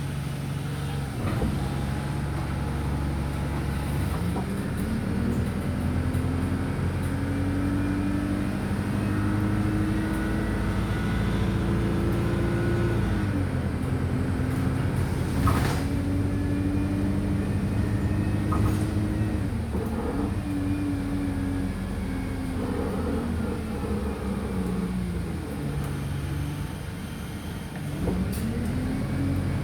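Wright StreetLite DF single-deck bus engine heard from inside the bus. It runs steadily, then climbs in pitch as the bus pulls away, with drops in pitch as the gearbox changes up. The engine then eases off as the bus slows and climbs again near the end. A few sharp rattles and knocks come from the bodywork.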